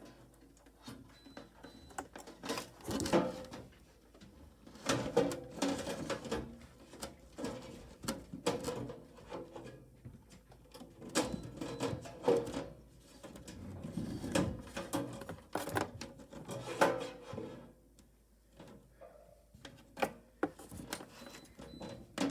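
Alarm wire being fed and pulled through a freshly drilled hole: rustling and scraping in irregular bursts, with occasional sharp clicks and knocks from handling.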